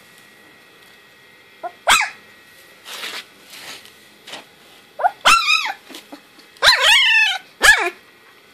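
Young puppy giving short, high-pitched yelps and little barks: one about two seconds in, then a quicker run of them from about five seconds in. A few soft breathy sounds come between.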